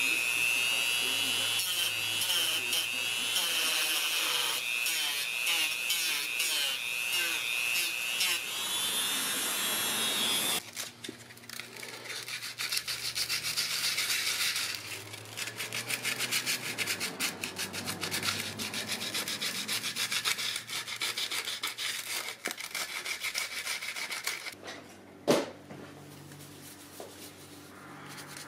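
Handheld rotary tool running with a steady high whine as its bit grinds the plastic emblem mounting ring of a mesh grille, stopping abruptly about ten seconds in. Then hand sanding of the same plastic with sandpaper in repeated rubbing strokes, and a single sharp knock near the end.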